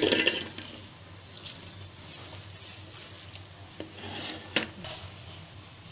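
Chopped raw mango pieces tipped from a colander into a metal pot and pushed in by hand. A loud clatter at the start, then soft rubbing and scraping of fruit against metal, with a few light knocks, one sharper about three-quarters through.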